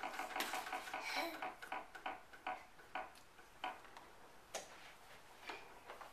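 Plastic toy push lawn mower clicking as its wheels turn on carpet: a fast rattle that fades in the first second or so, then single clicks that come further and further apart.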